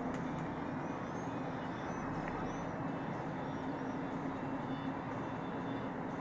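Diesel engine of a yellow truck running steadily under load as it drags a sheet-metal garage, heard from a distance as a continuous low hum. A few faint high chirps come through about one to three seconds in.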